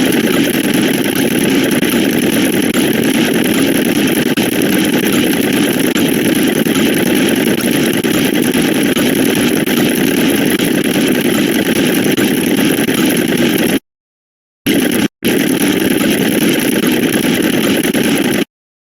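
A dense, steady buzzing drone of rapid-fire electronic sound effects, blurred into one engine-like noise. It cuts out to dead silence for under a second about 14 s in, and again briefly just after. It stops abruptly about a second before the end.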